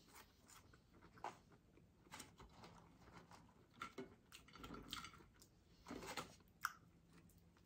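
Faint chewing and mouth sounds of someone eating McDonald's chicken nuggets and french fries, with scattered soft clicks and smacks. There is a light rustle of the paper fries carton around four seconds in.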